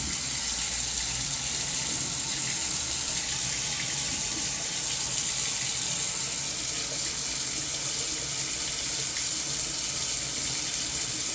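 Tap running steadily into a sink, opened to call a combi boiler for hot water as a test; the boiler does not fire.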